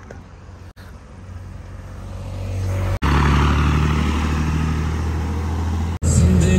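Heavy truck diesel engines running: a low rumble that swells over the first few seconds, then a loud, steady drone. The sound breaks off sharply twice.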